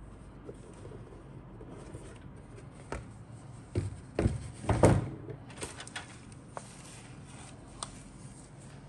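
A cardboard model-kit box handled and its lid lifted off, with a cluster of knocks and scuffs about four to five seconds in, followed by lighter crinkling of the plastic bag holding the paper instruction sheets.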